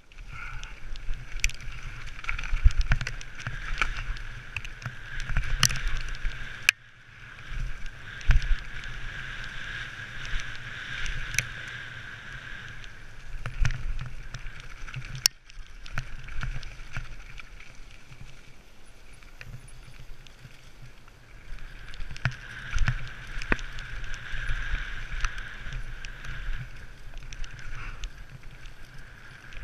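Mountain bike descending a rough dirt trail: the bike rattling and clattering with many sharp knocks over rocks and roots, under rumbling wind on the microphone. A steady buzz runs through two long stretches, first for most of the first half and again later.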